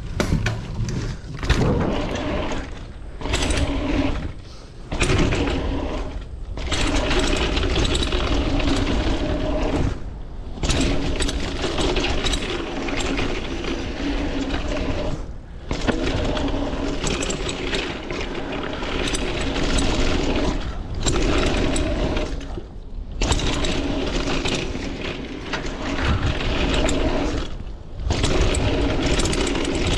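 Kona Mahuna hardtail mountain bike ridden fast down a dirt trail: tyres rolling on dirt, with the chain and frame rattling over bumps and a steady hum underneath. The noise drops out briefly several times.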